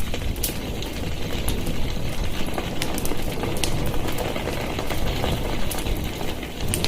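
Fire burning with a steady low rumble, broken by irregular sharp crackles.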